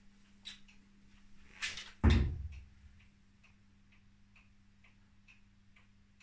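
Steady mechanical ticking, about two ticks a second, over a low hum. About two seconds in, a short rustle and then a single loud heavy thud that dies away over most of a second.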